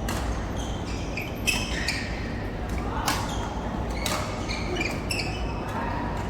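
Badminton rackets striking a goose-feather, cork-headed shuttlecock in a rally: several sharp hits, the loudest about a second and a half and three seconds in, with short high squeaks between them.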